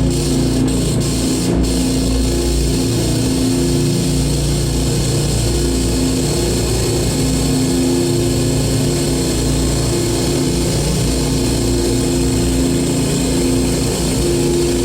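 Live harsh noise music played through a PA: a loud, dense wall of distorted noise over a heavy low rumble, with two sustained droning tones that cut in and out.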